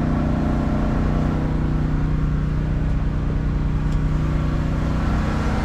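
A motor vehicle's engine idling steadily with an even hum.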